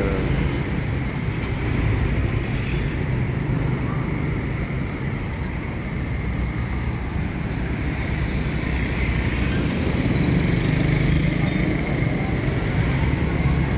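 Steady street traffic noise: a continuous low drone of passing cars and motorbikes.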